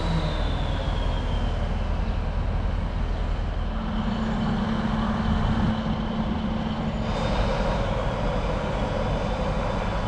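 Class 153 diesel multiple unit's Cummins engine running as the single-car train rolls slowly past along the platform, with a steady low rumble and a faint high squeal from the wheels.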